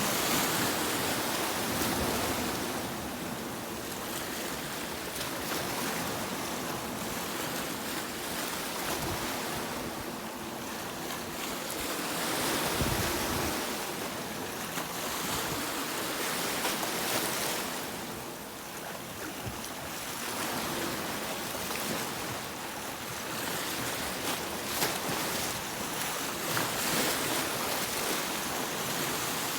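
Sea waves breaking on a beach: a steady rush of surf that swells and eases every few seconds as each wave comes in and washes back.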